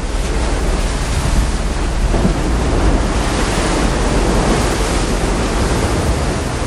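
Steady rushing of sea water and wind, with a low rumble underneath.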